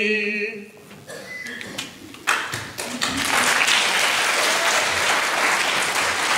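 The last sung note of a theatre song dies away, and about two seconds later the audience breaks into steady applause.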